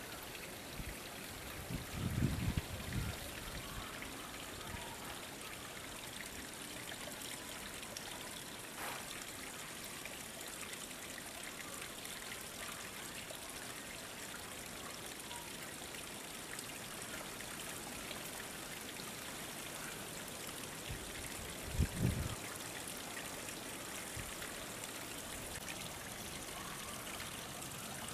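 Steady trickle of running water flowing through a concrete channel, with two brief low thumps, one about two seconds in and one about twenty-two seconds in.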